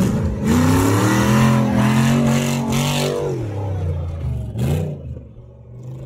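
Off-road buggy's engine revving hard in one long burst as its mud tyres spin in dry dirt, the revs dropping after about three seconds. A short blip follows near the end as the engine fades.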